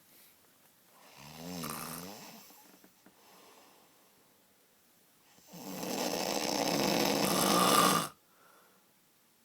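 A man snoring: a shorter snore with a wavering pitch about a second in, then a long, louder snore that cuts off suddenly near the end.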